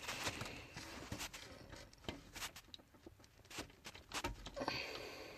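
Faint, scattered clicks and rustling of plastic wiring-harness connectors being worked loose from the back of a car radio, one handed.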